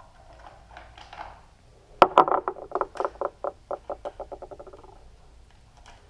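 A small hard object dropped and bouncing on a hard floor: one loud knock about two seconds in, then knocks that come ever faster and fainter as it settles, each with a short ringing tone.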